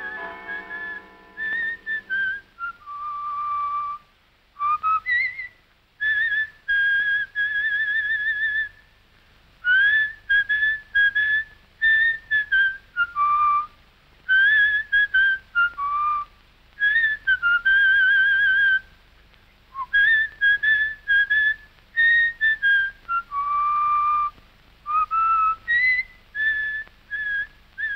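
Solo whistling of a theme tune: a single clear melody in phrases separated by short breaths, with the held notes warbled.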